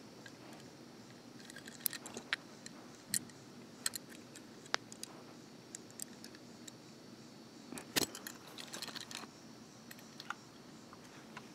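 Faint scattered clicks and light metallic rattles from a small die-cast toy truck being handled and turned over in the hand, with the sharpest click about eight seconds in.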